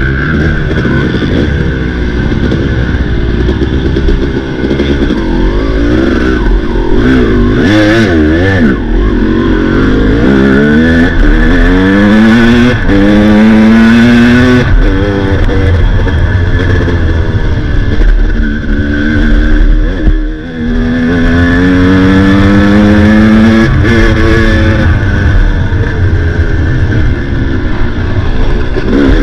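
Dirt bike engine revving hard under race load, its pitch climbing in long sweeps and dropping back at each gear change or throttle-off, with a short lift off about twenty seconds in.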